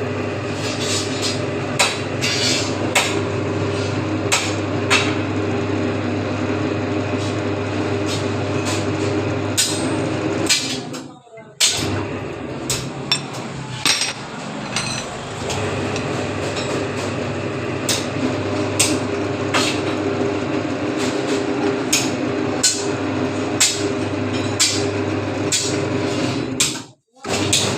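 Motor-driven bending machine for iron square bars running with a steady hum, overlaid by frequent sharp metallic clanks. The machine noise cuts out briefly twice, once partway through and once near the end.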